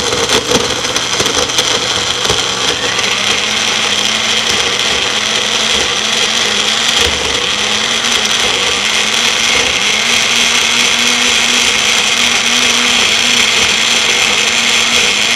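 Small personal blender running steadily at full speed, its motor whirring loudly as it crushes frozen dark cherries with almond milk, dates and cocoa into a thick ice-cream mix.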